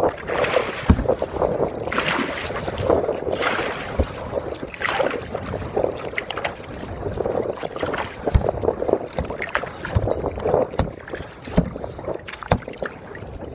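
Kayak paddle strokes splashing in the water, repeating every second or two, with a few sharp knocks scattered through.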